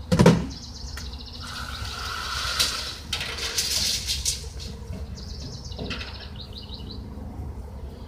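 A single heavy thump about a quarter second in, then rustling and scraping as lumber is handled and marked. Birds chirp in fast high trills in the background, twice.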